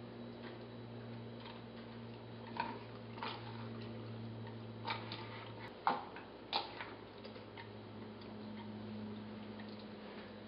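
Faint, irregular squelches and sticky clicks from glue-and-borax slime being squeezed and pulled apart by hand in a plastic cup, over a steady low hum.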